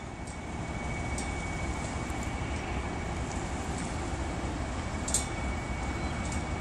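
Steady low outdoor background rumble, with a few faint clicks and one sharper click about five seconds in.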